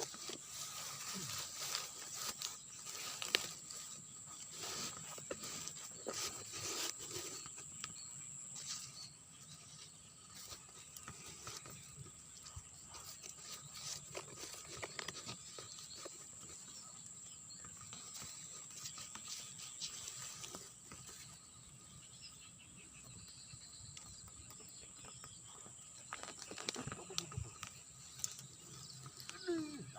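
Outdoor ambience: a steady high-pitched whine with scattered clicks and knocks, busiest in the first few seconds and sparser afterwards.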